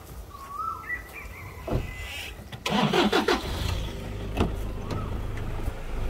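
Pickup truck engine cranking and catching a little under halfway through, then running at a steady idle. A bird chirps a few times over it.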